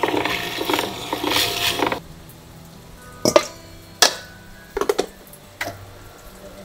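A plastic basket knocked against a stainless steel bowl about four times as sliced raw fish is tipped out of it, each knock sharp and ringing briefly. Before that, a busy mix of background sound runs for about two seconds and cuts off abruptly.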